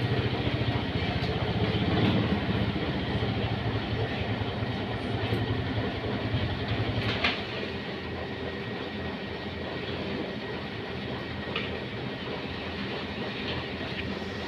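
An engine running steadily that drops away about seven seconds in, leaving a lower hum. A few sharp knocks of plastic chicken crates being stacked can be heard, one near the drop and one about eleven and a half seconds in.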